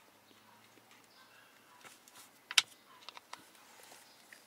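Small clicks and taps of handling a plastic grease tube and a car's blower fan motor, with one sharp click about two and a half seconds in and a few lighter ones just after.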